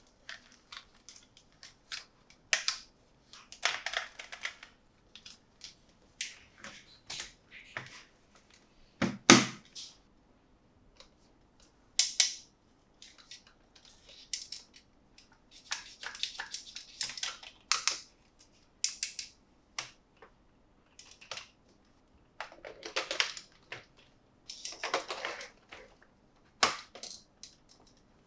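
Toy packaging being handled and opened: scattered sharp clicks, crinkles and rustles, with one louder knock about nine seconds in.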